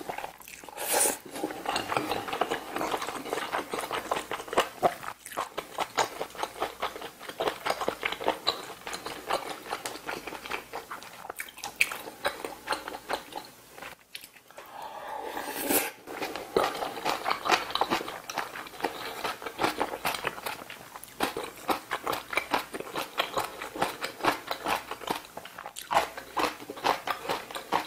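Close-miked chewing of braised kimchi stew with rice: quick, wet, smacking mouth sounds that break off briefly about halfway, then resume.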